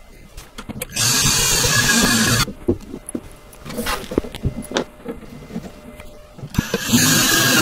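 Cordless drill driving screws through the melamine cubby's front trim into the panels, in two runs: one of about a second and a half starting a second in, and another starting near the end. Light clicks and knocks of handling come between the runs.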